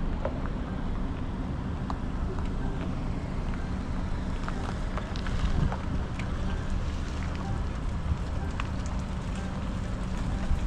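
An engine idling steadily with a low hum, wind buffeting the microphone, and a few faint scattered clicks.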